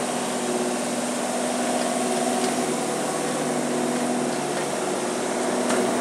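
Heavy construction machinery's diesel engine running at steady revs, a constant hum.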